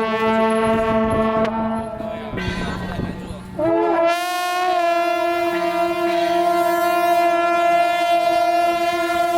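Horns sounding long, steady blasts. One held note runs until about two seconds in; a second, higher horn starts with a brief upward slide about three and a half seconds in and holds its note to the end.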